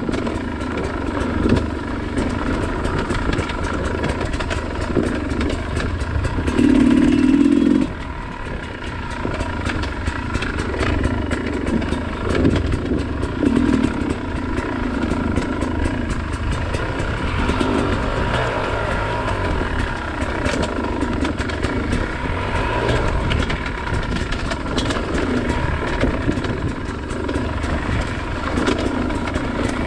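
Dirt bike engine running under constantly changing throttle while riding, with a louder stretch of throttle about seven seconds in.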